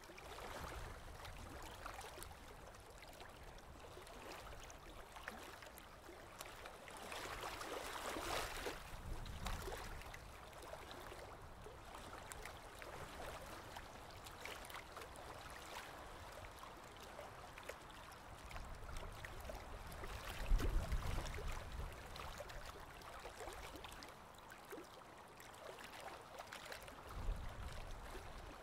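Aquarium water trickling and bubbling steadily, with fine crackling, from the tank's filter or aeration. A few low thumps come through, the loudest about twenty seconds in.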